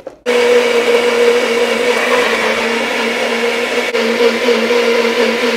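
NutriBullet personal blender running at a steady pitch, blitzing fresh coriander, mint, green chillies, lemon juice and a splash of water into a chutney. It starts just after the beginning and cuts off suddenly at the end.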